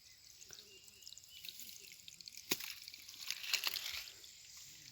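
Shallow pond water dripping and splashing as hands work in it, with one sharp splash about two and a half seconds in and a quick patter of drips about a second later.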